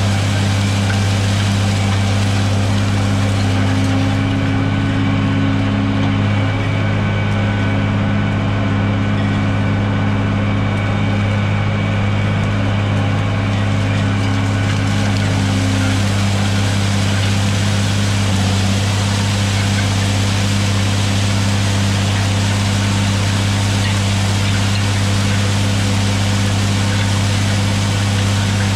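John Deere 4555 tractor's six-cylinder diesel engine running steadily under load as it pulls a disk harrow through corn stalks: a continuous low hum that shifts slightly in tone about four seconds in and again around sixteen seconds.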